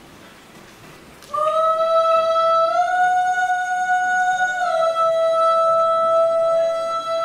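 Slow folk music starts about a second in: one high, long-held melody line that steps up a note, then back down, joined by a second, lower, wavering line partway through.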